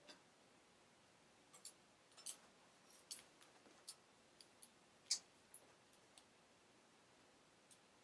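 Faint, scattered light clicks and taps of hair-styling tools being handled, about ten of them at irregular intervals, the loudest about five seconds in.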